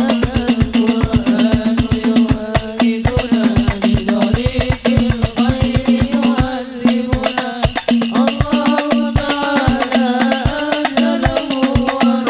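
Live sholawat hadrah music: a group of rebana frame drums beating a fast, dense rhythm over a sustained low note, with a wavering melody line above.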